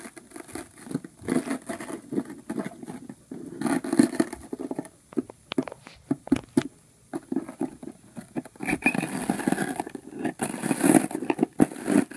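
A hand tool prying and scraping through shattered tempered glass, the small crumbled glass pieces crunching and clicking irregularly as it digs for the embedded pellets.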